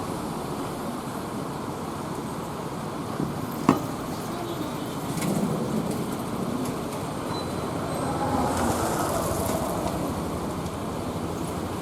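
Street traffic passing by, a steady road noise that swells twice as vehicles go past, with one sharp knock a little under four seconds in.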